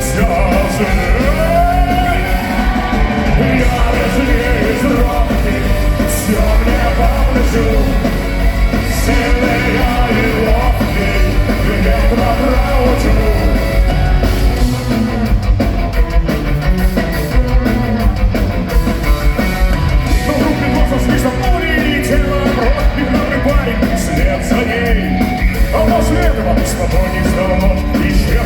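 Live punk rock band playing loud and steady, with distorted guitars, bass and drums, and some singing and shouting over the instrumental passage between verses.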